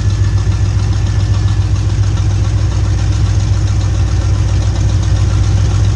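Small-block Chevy V8 with an Edelbrock AVS2 650 carburettor and headers idling steadily, with an even, fast low pulse from the exhaust.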